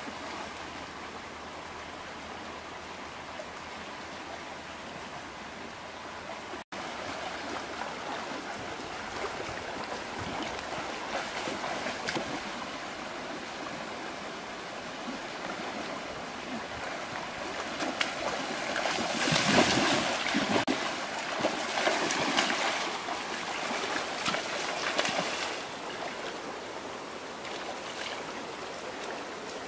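Shallow rocky stream rushing and rippling over stones. About two-thirds of the way through, louder irregular splashing comes in for several seconds as people wade and grope through the water.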